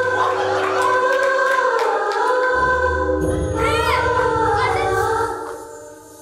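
A group of young voices singing together in sustained notes, fading out about five seconds in.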